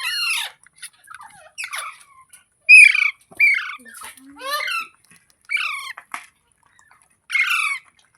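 Rose-ringed parakeet (green pet parrot) giving a string of short, harsh calls, about seven in eight seconds, each dropping in pitch.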